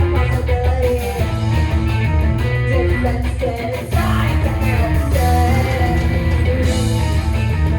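Live rock band playing: electric guitar over a heavy, steady bass line.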